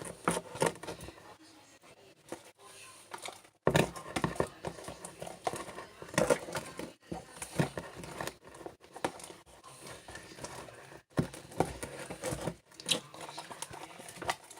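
Homemade slime being mixed and pulled apart by hand, making irregular sticky crackling and tearing sounds, with a short lull about two seconds in.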